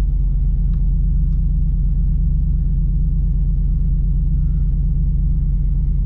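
Third-generation Camaro engine idling steadily just after being jump-started from a battery pack, left running so its batteries can charge.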